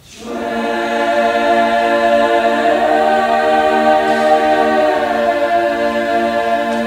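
Mixed choir singing a cappella, entering together after a brief pause and holding long sustained chords.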